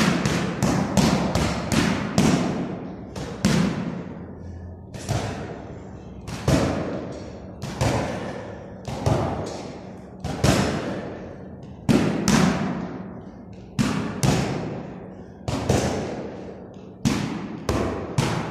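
Gloved punches landing on a heavy punching bag, each a hard thud that echoes in the room. Quick flurries of several punches a second at the start and near the end, with single punches about a second apart in between.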